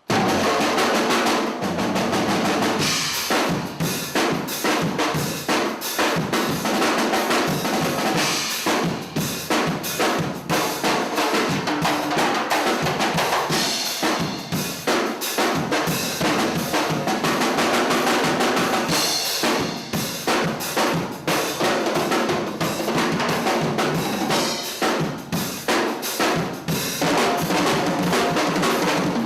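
Drum kit played continuously in a busy groove of bass drum, snare and rimshots, with cymbals rising up every few seconds.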